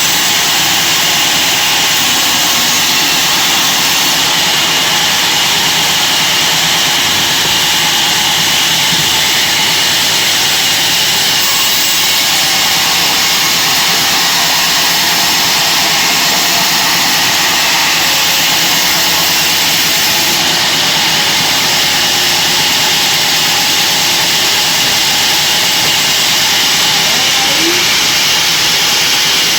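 Sawmill band saw running, a steady, loud hiss-like noise that holds unchanged throughout.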